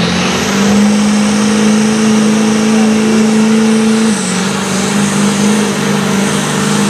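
Diesel pickup truck engine held at high revs under full load as it drags a weight-transfer pulling sled. The engine note is steady, dropping slightly in pitch about four seconds in.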